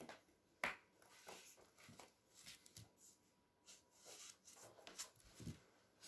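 Faint handling noises of soft plasticine being rolled and pressed by hand on a tabletop, with scattered small clicks and one sharp tap on the table about half a second in.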